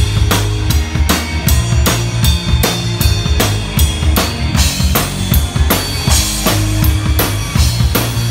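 Rock drum kit played hard close to the microphone: a steady beat of kick drum and snare with cymbals, over the band's bass line.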